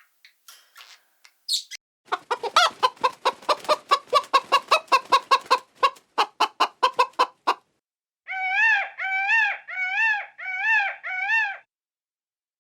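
Chicken clucking rapidly, about five clucks a second for several seconds, then after a short pause five short rising-and-falling calls.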